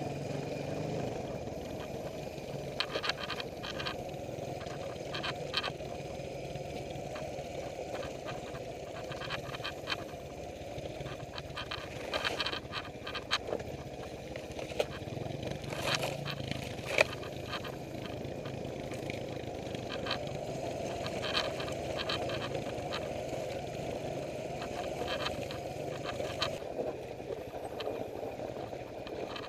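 Suzuki DR350 single-cylinder four-stroke engine running at low revs while the bike crawls along a rough trail, with scattered sharp clicks and knocks throughout.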